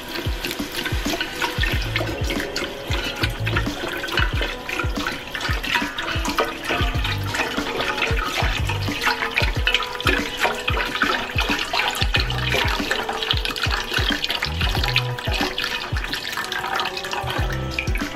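Chicken broth pouring in a steady stream from a carton into a pot of sautéed vegetables, splashing, while a wooden spoon stirs in the pot.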